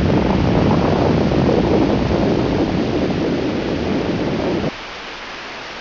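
Loud, steady rushing noise with a deep rumble underneath. Near the end it drops abruptly to a quieter, thinner hiss.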